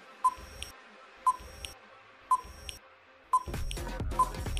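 Quiz countdown timer beeping: a short, high electronic beep about once a second, five in all. A louder low-pitched background sound comes in just over three seconds in.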